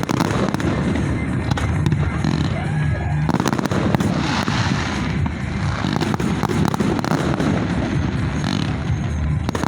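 Fireworks display in full swing: a dense, unbroken run of crackling and popping shells over a steady low rumble of bangs.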